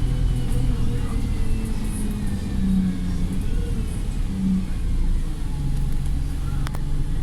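Wright StreetLite single-deck bus engine and drivetrain running under way, the engine note rising and falling with a faint whine sliding in pitch above it. A single sharp click comes near the end.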